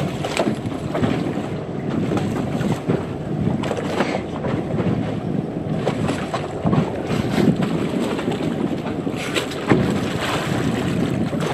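Wind buffeting the microphone over the rush of water along the bow of a moving boat, with a few brief splashy surges.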